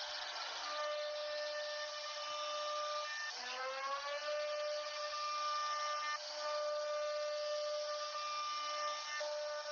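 CNC router spindle whining steadily as it cuts wood, over a hiss of cutting noise; about three seconds in its pitch dips and climbs back up.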